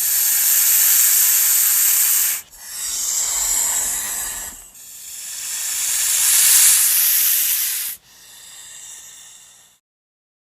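A snake hissing: four long hisses in a row, the last one shorter and fainter.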